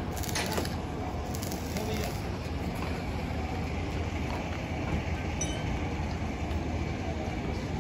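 Steady low rumble of roadside background noise.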